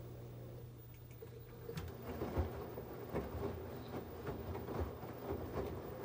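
LG 17 kg front-loading washing machine with a low steady motor hum. Its drum starts turning about a second and a half in, and the tumbling laundry makes irregular thuds.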